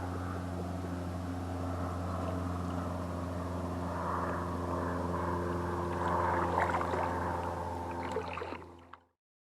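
A motor running at a steady pitch, with water sloshing over it, fading out shortly before the end.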